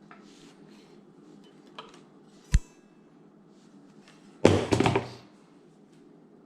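Handling knocks during unpacking: a single sharp knock about two and a half seconds in, then a louder cluster of thuds lasting under a second, with faint rustling between.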